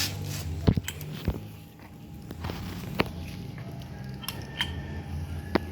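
A few sharp, scattered clicks and knocks, about four in all, over a low steady hum.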